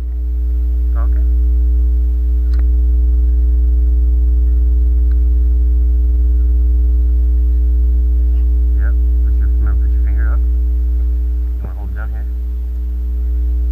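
Loud, steady electrical hum with a few fainter steady higher tones over it, dipping briefly near the end: interference on the recording, which the uploader blames on overhead power lines.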